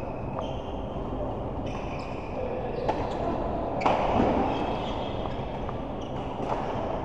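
A doubles racket rally in an indoor hall: a string of sharp hits about a second apart, the loudest a little before the middle, with short high squeaks between them.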